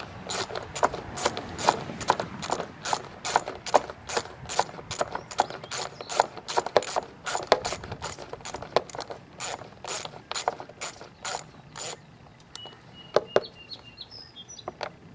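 Socket ratchet clicking steadily, about three clicks a second, as it backs out a 10 mm engine-cover bolt. The clicking stops about twelve seconds in, with a couple of last clicks shortly after.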